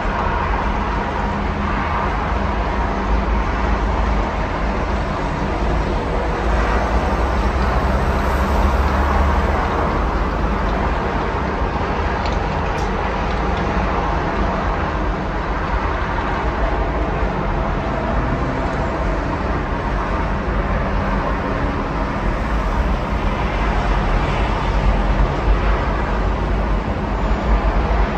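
Steady road traffic: a continuous wash of cars and lorries passing on a multi-lane road, with a low engine rumble underneath.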